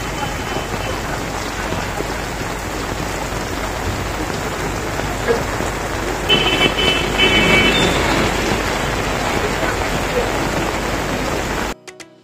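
Heavy rain pouring down steadily on a paved street and railway track, a dense even hiss that cuts off suddenly near the end.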